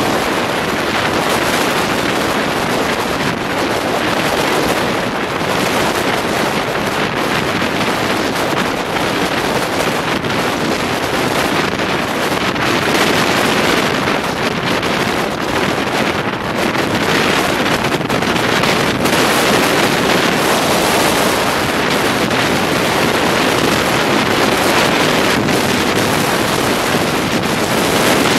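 Steady rushing tyre and wind noise of a car cruising at highway speed, heard from inside the cabin.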